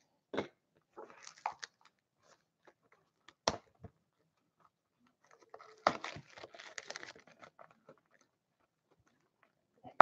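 Cellophane shrink wrap being torn and crinkled off a sealed box of hockey cards: scattered soft crackles, one sharp snap about a third of the way in, and a denser run of crinkling a little past halfway.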